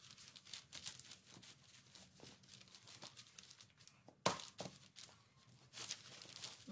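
A minivelo bicycle tyre being worked onto its rim by hand: faint rubbing, creaking and small clicks of rubber against the rim, with one sharper click a little over four seconds in.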